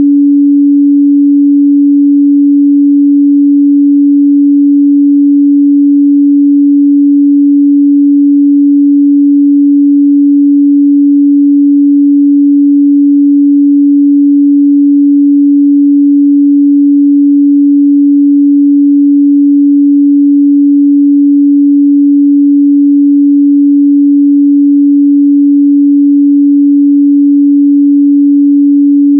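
A steady, loud 285 Hz sine-wave test tone, a single pure pitch held without change.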